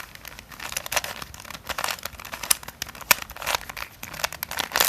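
Plastic Fisher cube, a shape-modded Rubik's cube, being turned by hand: quick, irregular clicks and rattles as its layers are twisted.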